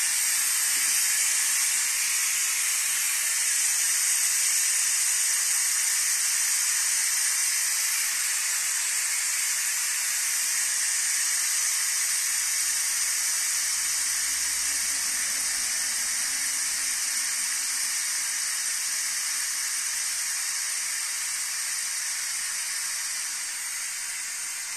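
Steam hissing steadily out of the pressure-release valve of a Tefal CY505E40 electric multi-cooker, venting the pressure after cooking so the lid can be opened. The hiss slowly weakens as the pressure drops.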